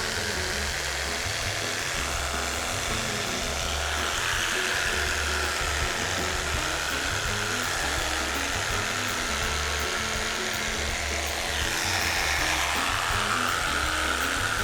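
Background music with a steady beat over the steady buzz of a small electric cutting tool trimming seat cushion foam.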